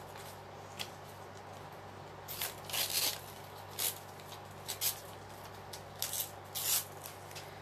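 Paper scraps being handled and rustled in short, crinkly bursts, several times at uneven intervals, over a faint steady low hum.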